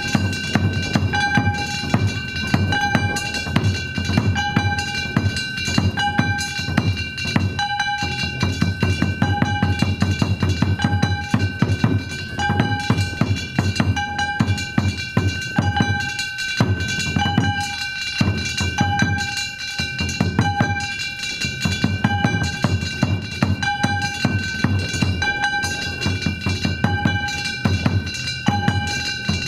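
Danjiri bayashi festival music in practice: rapid taiko drumming under a steady metallic ringing, with a short note repeating about every second and a half. The drumming thins briefly a little past the middle.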